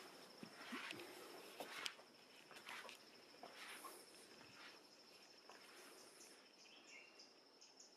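Faint, steady high-pitched insect trill, finely pulsed, typical of a cricket. A few soft clicks and rustles come in the first two seconds, and short bird-like chirps near the end.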